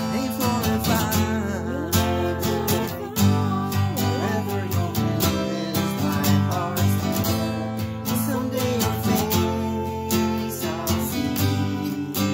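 Yamaha acoustic guitar strummed in a steady rhythm, with a man singing a slow hymn melody over it.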